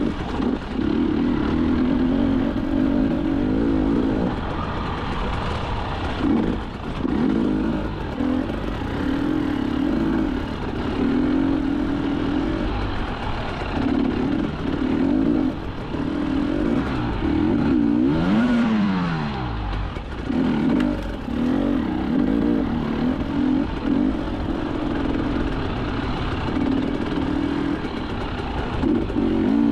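Enduro motorcycle engine revving in short on-off bursts as the throttle is opened and closed. About eighteen seconds in, the revs fall away in one long drop and then pick up again.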